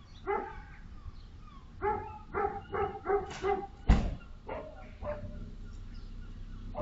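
A dog barking through a doorbell camera's microphone: one bark, then a quick run of about six barks, then two more. A single sharp knock, the loudest sound, comes about four seconds in.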